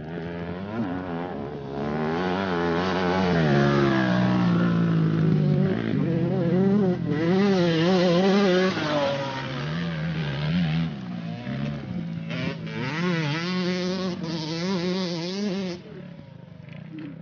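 Motocross dirt bike engine revving up and down as the rider works the throttle, its pitch wavering quickly. It is loudest in the middle and drops away abruptly near the end.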